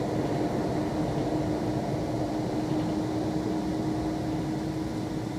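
Steady running noise of an NSB Class 74 electric multiple unit heard from inside the passenger cabin: an even rumble of wheels and air with a steady hum over it.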